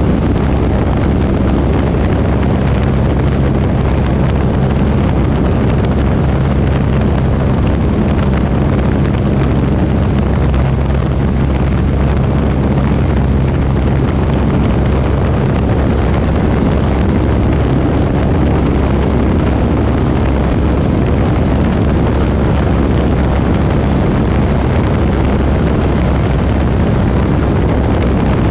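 Light aircraft's piston engine and propeller running steadily, heard loud from inside the cockpit, with a low drone whose pitch shifts slightly a few times and wind noise over it.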